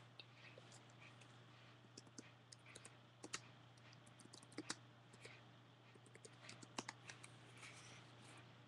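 Faint, irregular clicking of computer keyboard keys being typed on.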